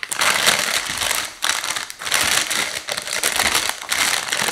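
Thin plastic bag of potatoes crinkling and rustling loudly as it is handled and torn open at one corner.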